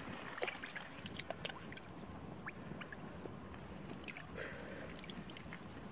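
Light splashing and sloshing in shallow muddy water, with many small scattered flicks and ticks, as a crowd of stranded small fish wriggle and hands move through the water.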